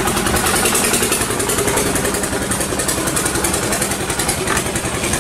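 Small boat's inboard engine, an exposed flywheel-type motor, running with a steady fast chugging.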